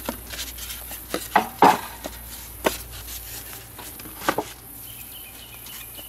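Hive box parts being handled: a handful of sharp knocks and rustles, the loudest about a second and a half in, over a steady high drone of insects.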